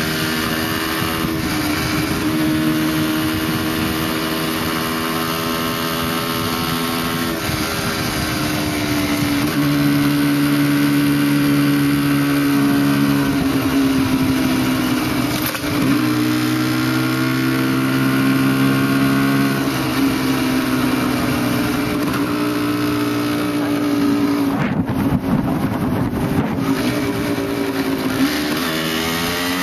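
Motorcycle engine running under way, heard from on the bike, its note dropping and climbing again several times as the throttle changes, over a steady rush of wind noise.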